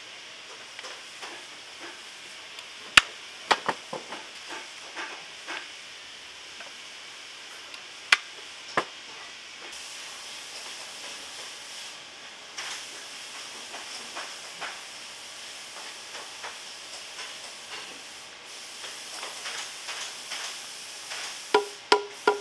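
Bootmaker's hand tools working leather: sparse light taps and knocks over a steady hiss, with a few sharper strikes. Near the end a quick run of ringing hammer taps begins on a boot fitted over a steel post.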